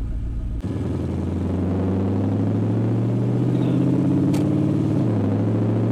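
LS-swapped Ford Ranger's 5.3-litre V8, heard from inside the cab. Its note rises steadily in pitch under acceleration for about four seconds, then drops sharply near the end as the TH350 automatic shifts up, and carries on in the next gear.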